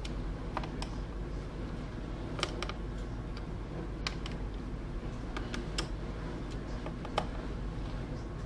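Scattered light clicks and taps of small screws and a screwdriver being handled against the plastic bottom cover of a Dell Inspiron 15 laptop, about five sharper clicks over a steady low hum.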